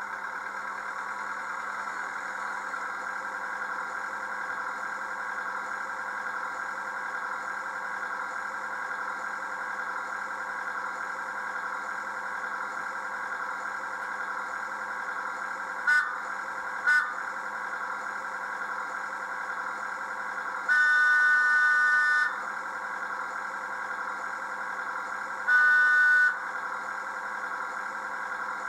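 Digital sound decoder of an OO gauge North Eastern Railway autocar model playing its engine idling steadily through the model's small speaker, thin with no bass. Over it the horn sounds as a chord of several notes: two short toots just past halfway, then a longer blast and a shorter one near the end.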